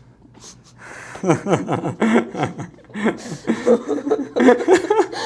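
Laughter: after a quiet first second, a burst of repeated chuckles, each falling in pitch, runs on through the rest.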